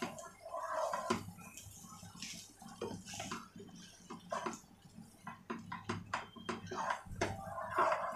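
A metal spoon stirring and tossing fried rice in a non-stick pot: repeated scrapes and knocks of the spoon against the pot, with the soft rustle of the rice being turned over.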